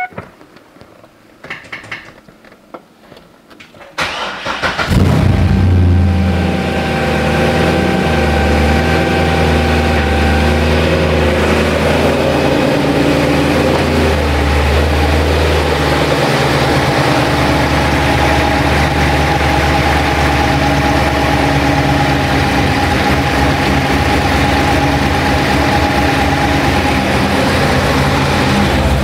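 2009 Corvette Z06's 7.0-litre LS7 V8 being started about four seconds in, after sitting disconnected for a week. It catches at once, runs at a higher idle for several seconds, then settles into a steady idle.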